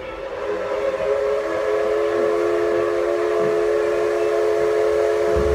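Steam locomotive whistle blown in one long blast of about five seconds, a steady chord of several tones that cuts off sharply.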